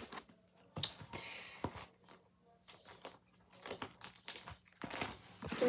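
Irregular rustling, crinkling and light clicks of handling: plastic pages of a card binder being moved and turned, with the phone itself being handled.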